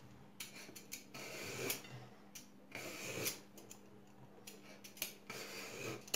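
Vegetable peeler scraping strips of skin off an eggplant in a series of short, quiet strokes, with a few light clicks between them.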